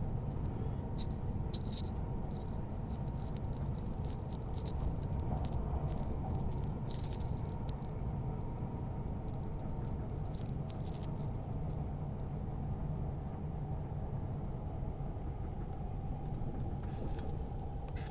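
Steady low rumble of a Queensland Tilt Train at speed, heard from inside the carriage, with a faint steady hum. Light rattles and ticks come and go over it, thickest in the first half and again near the end.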